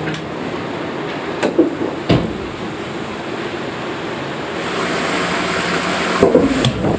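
Several sharp knocks and thuds from the AquaLoop waterslide's trapdoor start capsule, over a steady hum. A rising rush of noise builds from about two-thirds of the way in, with more knocks near the end.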